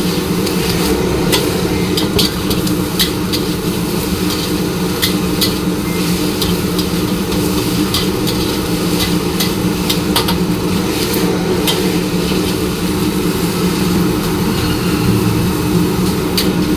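Metal spatula clanking and scraping against a wok in quick, irregular strokes as kwetiaw goreng (fried flat rice noodles) is stir-fried, over a steady low drone.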